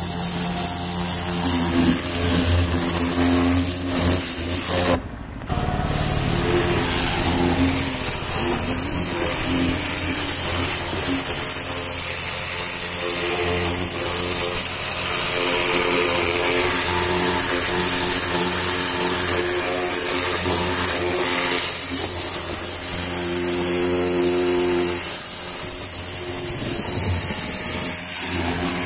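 Pressure washer running: its pump motor hums steadily while the jet of water hisses against the tyre and wheel arch. The sound briefly cuts out about five seconds in, then carries on.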